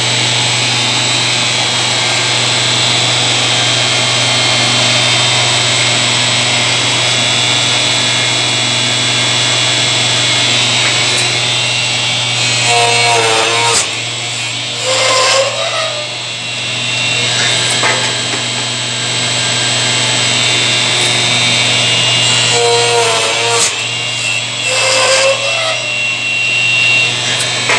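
Hempel IH25 automatic wood-turning lathe running with a steady hum and high whine while its knives cut a small wooden part. Short wavering squeals come in pairs about ten seconds apart, one pair per turning cycle.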